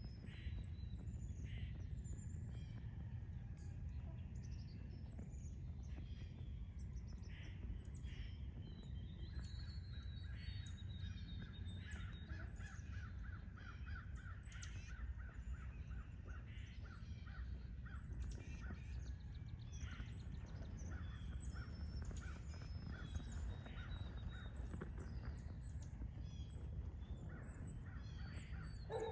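Outdoor morning ambience: wild birds chirping and calling, with short scattered calls and a longer run of rapid repeated notes partway through, over a steady low rumble.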